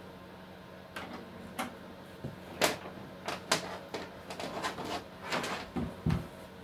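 Clicks and knocks of the Smith Corona word processor's light plastic unit being handled, ending with a dull thump about six seconds in as it is set down on a cloth-covered bench.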